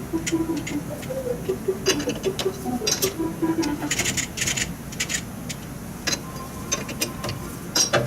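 Scattered light metal clicks and scrapes from hands-on work at a metal lathe while a part is being trued with a dial indicator, with faint music in the background.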